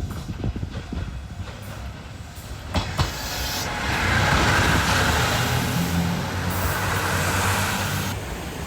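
JR Shikoku 2700 series diesel train passing. Wheels click over the rail joints, then a rushing rolling noise builds with a low engine drone underneath, and it cuts off sharply near the end.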